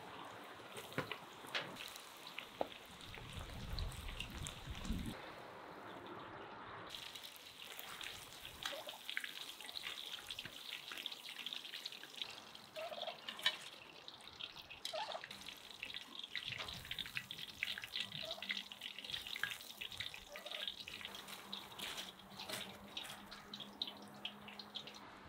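Breaded chicken strips deep-frying in hot oil in a cast-iron kazan: a steady sizzle full of sharp crackling pops.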